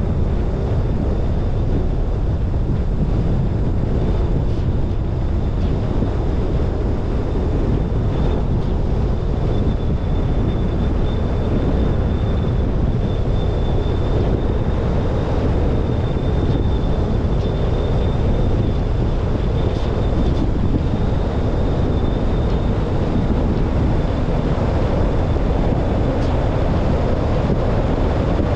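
Wind buffeting the microphone of a roof-mounted GoPro Hero 10 on a moving car, a steady low rumble mixed with road noise from the car driving.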